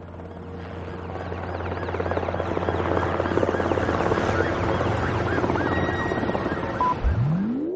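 A rapid rotor-like pulsing drone over a low hum, swelling steadily in loudness, with a single rising sweep near the end.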